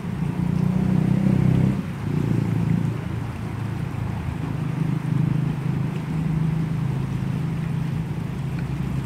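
Steady low rumble of wind buffeting the microphone over a flowing river, loudest in the first two seconds and then easing slightly.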